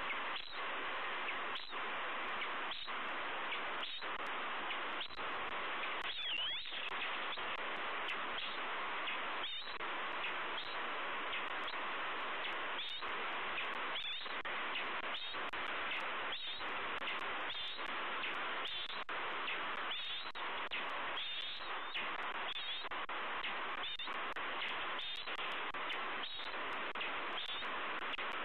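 Steady rushing noise on an outdoor nest-cam microphone, broken by frequent short clicks, with brief high bird chirps now and then.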